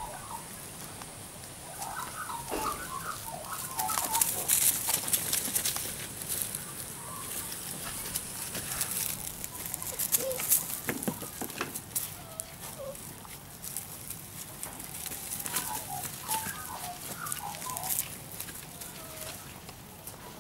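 A dog pushing through brush and pawing at dry leaves, a rustling and crackling that comes and goes. Two bursts of short squeaky calls come through it, one a couple of seconds in and another near the end.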